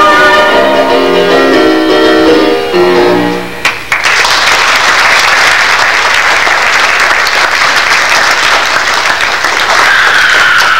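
The instrumental accompaniment of a stage musical song plays its closing bars and ends about three and a half seconds in. Then an audience applauds.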